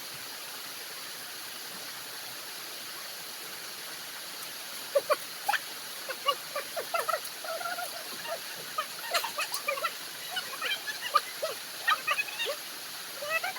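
A steady hiss, then from about five seconds in many short, high squeaks and yelps from a small animal in quick succession.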